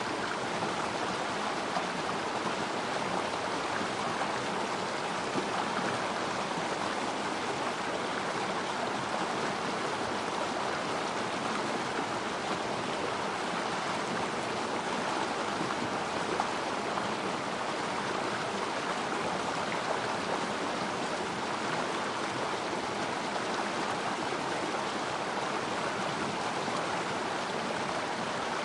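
Water flowing steadily in a small river stream, a continuous rushing and babbling with small irregular splashes.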